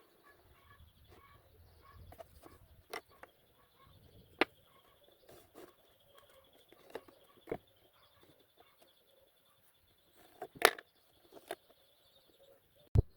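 A few scattered sharp knocks and taps, some seconds apart, the loudest about two-thirds of the way in, over faint high chirping in the background.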